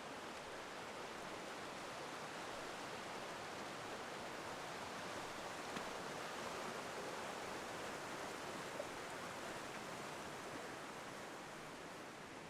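Steady rushing of river water, swelling a little midway, with two faint clicks.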